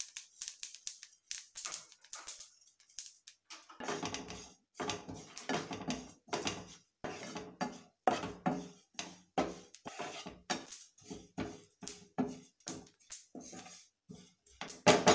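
A spatula scraping and stirring sesame seeds and desiccated coconut as they dry-roast in a nonstick frying pan. Scattered scrapes for the first few seconds, then steady stirring strokes about twice a second from about four seconds in, loudest near the end.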